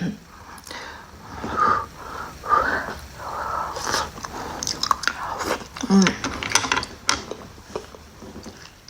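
A person chewing and biting food close to the microphone, with irregular small clicks.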